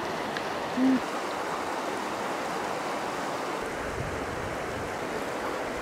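Steady rushing of a fast-flowing river, an even hiss with no rhythm, with a brief low rumble a little past the middle.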